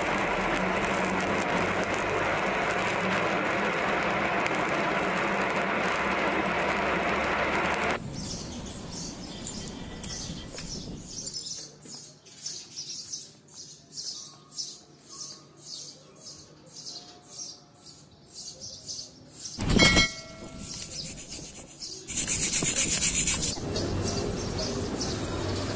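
Stick-welding arc from a 6013 electrode crackling steadily on a vertical joint, cutting off about eight seconds in. Then quieter, evenly spaced scraping strokes of slag being cleaned off the bead, about two a second, and one loud ringing metal clang near the end.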